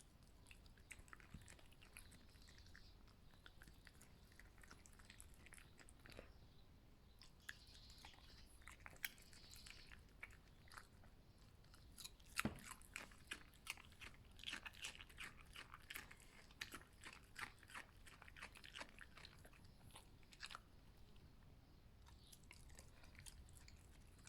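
A fox chewing and biting its food: faint, irregular crunches and clicks of the teeth, coming thickest through the middle stretch.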